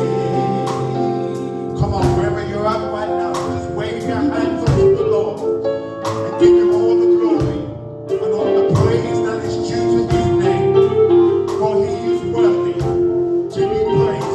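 Live gospel praise band playing a worship song, with singing, keyboard and a steady beat on drums and tambourine.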